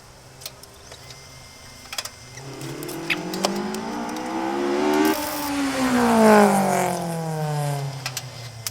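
A motor vehicle engine rising in pitch for a couple of seconds, then falling slowly away, with a few sharp clicks before it.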